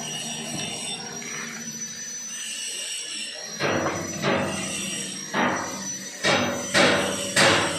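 A hammer striking steel about six times in the second half, each blow ringing briefly, over a steady high whine.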